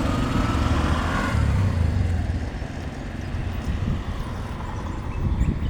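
A motor running with a low, steady hum and a faint whine above it, dropping in level about two seconds in.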